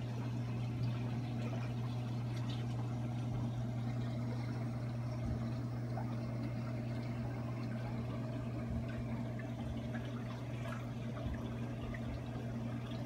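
Reef aquarium running: a steady low pump hum with water trickling and pouring through the tank's circulation.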